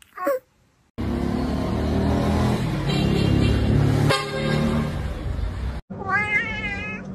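A kitten's short meow that falls in pitch, then about five seconds of loud street traffic noise with engine and horn-like tones, then a cat's drawn-out, wavering meows near the end.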